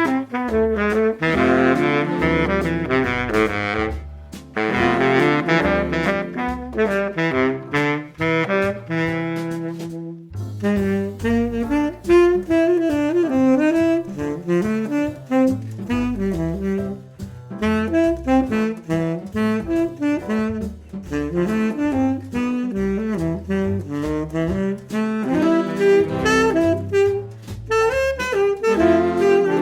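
Instrumental jazz with a saxophone-like lead melody over walking bass and backing, with a short break about ten seconds in.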